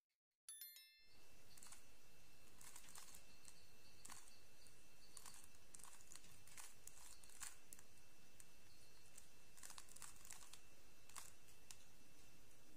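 Plastic speedcube being turned by hand: irregular clicks and scrapes of its layers snapping round as an F2L algorithm is run, over a steady faint hiss. A brief bell-like chime sounds about half a second in.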